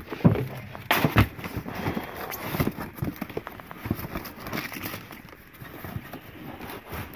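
A few knocks as a cardboard box is handled and set down, then irregular rustling and scraping of cardboard as its flaps are pulled open.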